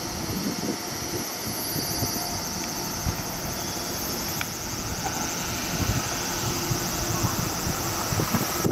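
Three-car set of KuMoYa 145 electric service cars approaching on the rails: a steady running noise of motors and wheels with a rough, uneven rumble, under a constant high-pitched pulsing buzz.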